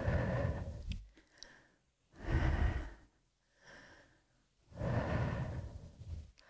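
A woman breathing deeply and audibly in paced exercise breathing: three long, loud breaths with softer, shorter ones in between.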